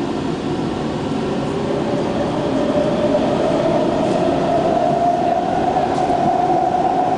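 SMRT C151 metro train accelerating away from a station, heard from inside the car: a motor whine climbs slowly and steadily in pitch over the rumble of the wheels on the rails, growing a little louder.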